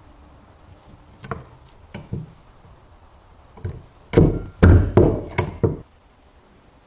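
Sharp clacks and knocks from working a metal stapler: a few single ones, then a quick run of louder ones about four seconds in.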